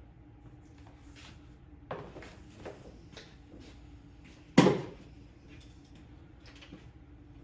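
Scattered knocks and clatter of things being handled, with a sharper knock about two seconds in and one loud clunk a little past halfway.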